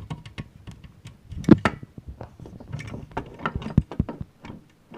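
Irregular clicks and knocks of a die-cast toy backhoe model being handled, its metal and plastic parts tapping together, with one louder knock about a second and a half in.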